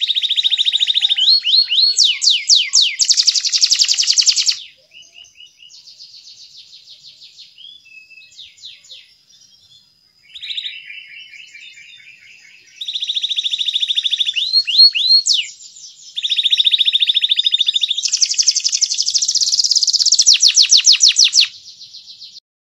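Domestic canary singing: long phrases of loud, very rapid trills and sweeping chirps, with quieter warbling between them. The song drops away near the end.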